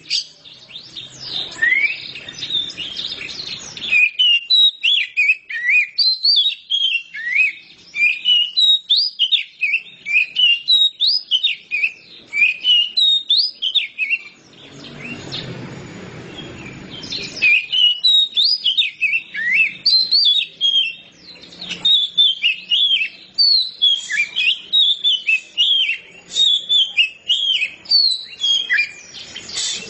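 Oriental magpie-robin (kacer) singing continuously: a fast, unbroken run of varied, sweeping whistled notes. The song breaks off for about three seconds midway, where a low noise is heard instead.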